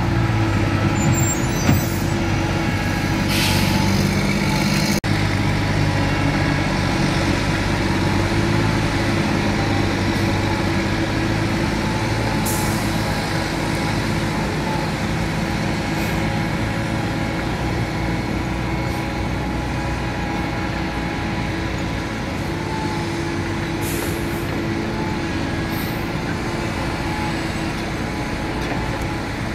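Diesel engines of Doosan crawler excavators and a Hyundai dump truck running steadily under work, with short hisses now and then.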